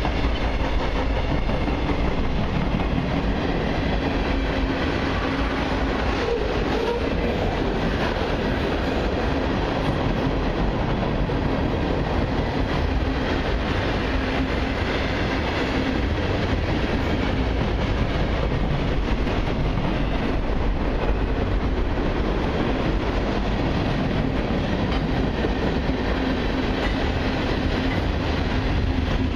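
Freight cars of a long mixed train, mostly tank cars and covered hoppers, rolling past at close range: a steady rolling rumble of steel wheels on the rail.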